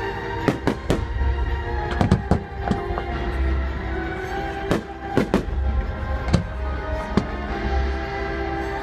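Fireworks bursting, about ten sharp bangs at uneven intervals, over steady music.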